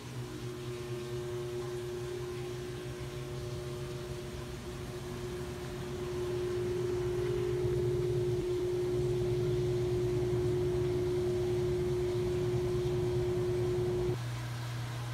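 A steady droning hum with a single held tone above it. The tone swells from about six seconds in and cuts off abruptly near the end, leaving the low hum.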